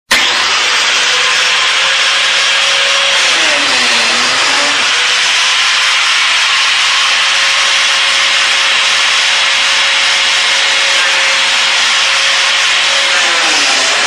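Biscuit joiner running continuously with a loud steady whirr, its motor note sagging and recovering twice, about four seconds in and near the end, as it takes load cutting into wood.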